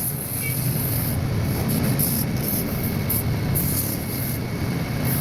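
Wood lathe running steadily, with a turning chisel cutting the spinning wood in short hissing stretches that come and go.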